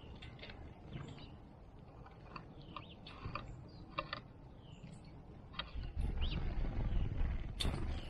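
Small backyard birds chirping, with many short calls and quick gliding chirps and a few sharp clicks. A low rumble swells about six seconds in and is the loudest sound.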